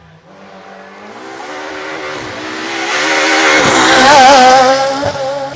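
Rally car approaching at speed and passing close, its engine at high revs. The engine note climbs and grows louder to a peak about four seconds in, then falls away near the end.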